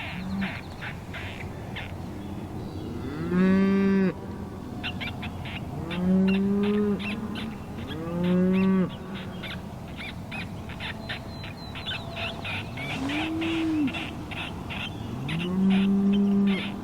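Cattle mooing, five drawn-out calls of about a second each, over a rapid run of short high squeaks from an electronic predator caller playing a field mouse distress sound.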